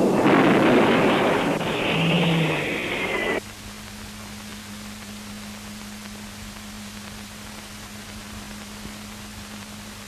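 Loud aircraft roar on an old film soundtrack, with a falling whine near its end, cut off abruptly about three seconds in. After that only a faint steady low hum of the soundtrack remains.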